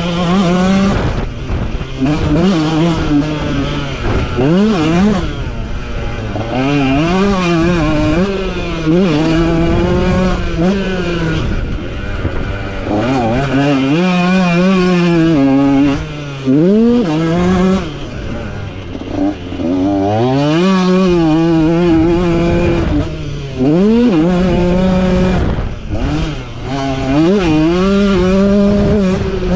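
KTM motocross bike engine under hard riding, revving up in quick rising sweeps through the gears and dropping back off the throttle again and again, with a few short dips where the rider backs off.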